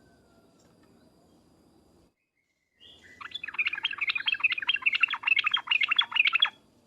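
Yellow-vented bulbul (trucuk) song: a loud, rapid run of quick chattering notes that starts about three seconds in, lasts about three seconds and cuts off abruptly.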